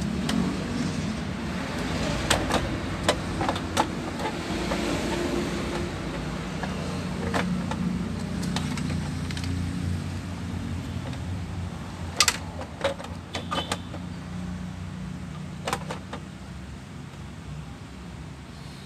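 Scattered clicks and knocks of parts and screws being handled as an amplifier is put back together, the sharpest knock about twelve seconds in, over a steady low drone.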